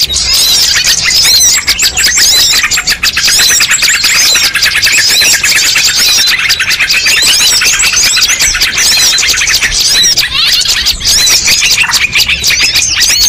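Dense, loud chorus of many small songbirds chirping and trilling all at once, a mixed multi-species bird-lure recording with calls overlapping and no gaps.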